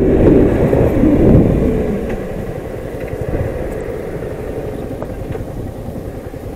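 Yamaha MT-15 motorcycle on the move, its engine running under a steady low rumble of road and wind noise. It gets somewhat quieter about two seconds in.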